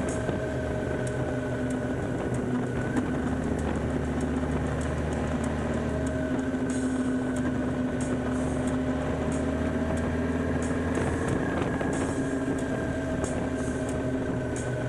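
BMW K1600 GTL's inline-six engine running at a steady cruise, with wind and road noise, heard from a camera mounted on the motorcycle.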